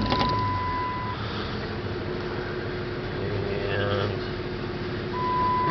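2007 Dodge Ram pickup's engine idling steadily just after being started. A steady high-pitched beep sounds for about the first second and comes on again near the end.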